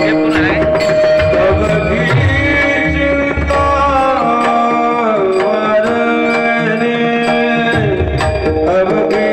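Live Marathi kirtan music: a melody of long held notes that slide from pitch to pitch, carried over hand-drum beats and a steady pattern of sharp clicks.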